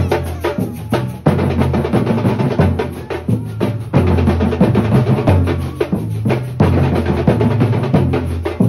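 A troupe of drummers playing large marching drums with Izzo heads, struck with sticks in a fast, dense rhythm of deep booming hits.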